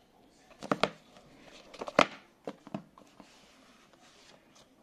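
Cardboard Apple Watch packaging being handled and opened: a scatter of sharp taps, scrapes and rustles, the loudest a knock about two seconds in.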